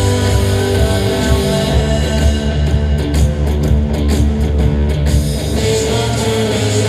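A live rock band playing at full concert volume, with heavy bass and a driving electric guitar. A few seconds in, the sound turns choppy for a stretch, its top end cutting in and out in short gaps before the full band comes back.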